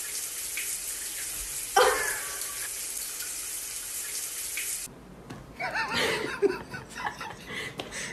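Steady hiss of running water that cuts off suddenly about five seconds in, with one short louder sound near two seconds in. Then a few short, irregular voice-like sounds.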